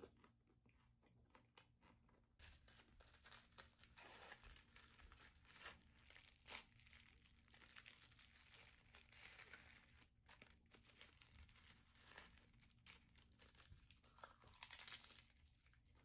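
Faint, irregular crinkling and rustling with many small clicks, louder in stretches, near the start of the second half and again near the end.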